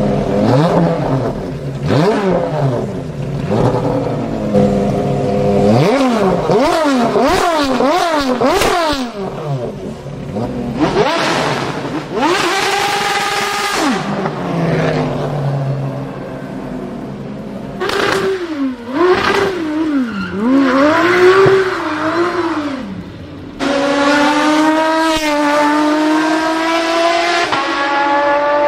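Aston Martin Vulcan's 7-litre V12 revving hard in a series of quick blips, its pitch shooting up and dropping back again and again. Near the end it makes a long high-pitched run up through the gears, with brief dips at each shift.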